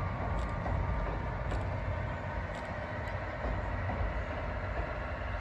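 Tobu SL Taiju steam train crossing a steel bridge at a distance: a steady low rumble of the train running, with faint high clicks about once a second.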